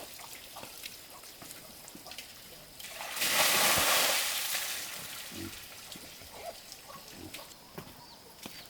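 Water splashing or being poured for about a second and a half, swelling and fading, amid small knocks and clicks.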